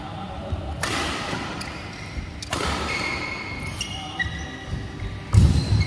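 Badminton racket strikes on a shuttlecock during a rally: two sharp cracks, about a second in and about two and a half seconds in, with shoes squeaking on the court mat. Near the end a heavy low thud of a player's footfall is the loudest sound.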